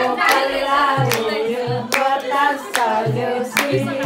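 Voices singing a Nepali folk song (lok geet), with hand claps keeping a steady beat a little under a second apart and soft low thumps underneath.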